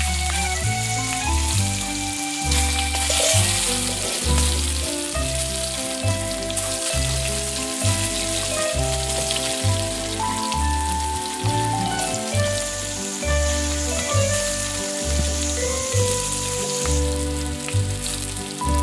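Background music with a steady pulsing bass and a simple melody, over a constant hiss of food sizzling as it fries in a pan.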